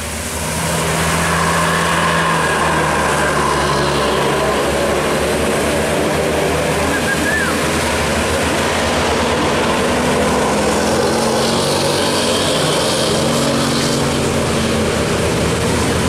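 Tour buses and motorbikes passing close by: the steady run of a large bus diesel engine over continuous road and traffic noise.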